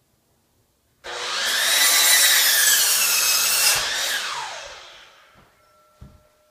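Electric miter saw starting up about a second in and cutting through a piece of lumber, its whine dipping and recovering during the cut, then spinning down with a falling whine after the trigger is released. A couple of light knocks near the end.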